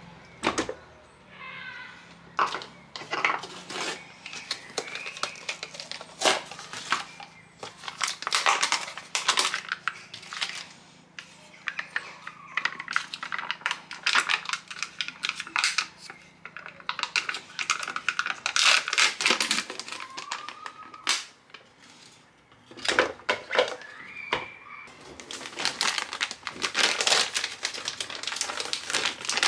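Crinkling and tearing of peel-off lids being pulled off plastic ricotta tubs, with irregular clicks and taps of the plastic tubs against a food processor's plastic bowl.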